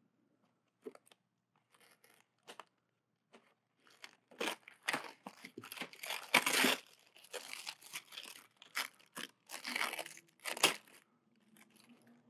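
Styrofoam shipping box being opened: a few faint clicks as a blade slits the packing tape, then from about four seconds in a run of tearing and crinkling as the tape and the tissue wrapping are pulled away.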